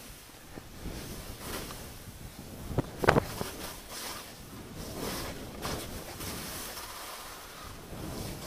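Skis hissing through snow on a downhill run, with a swish at each turn; the loudest comes about three seconds in. Wind buffets the microphone throughout.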